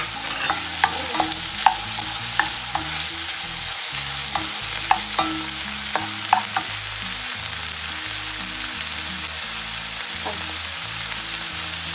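Diced onions and bell peppers sizzling in hot oil in a stainless steel frying pan while a spatula stirs them, scraping and clicking against the pan. The clicks come often in the first half and thin out later.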